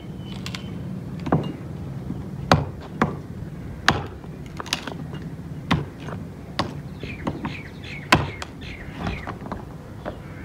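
A hatchet chopping a wooden board into kindling on a concrete floor: about ten sharp strikes at uneven spacing, roughly one a second.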